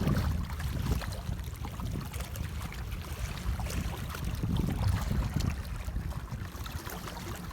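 Wind buffeting the microphone at the waterside: an uneven low rumble that rises and falls, with faint scattered ticks.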